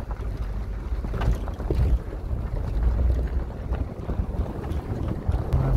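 Vehicle driving over a rough dirt road, heard from inside the cabin: a steady low rumble with scattered knocks and rattles from the bumps.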